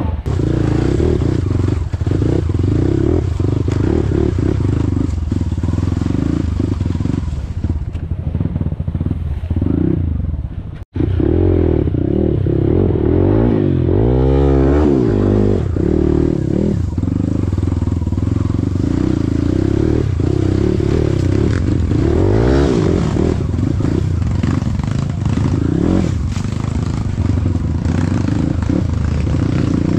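Motorcycle engine running steadily, its pitch rising and falling a couple of times as it revs, with a brief dropout about eleven seconds in.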